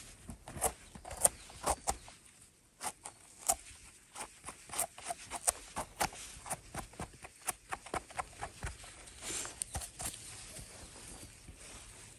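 Footsteps crunching through dry leaf litter and twigs on a forest floor: a string of irregular sharp crackles and snaps.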